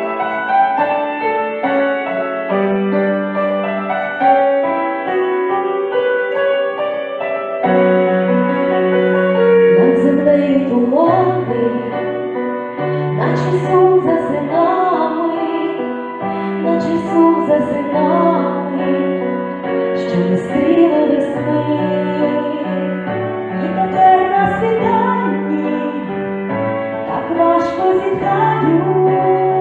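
A song played on keyboard, with female voices coming in singing the melody about eight seconds in.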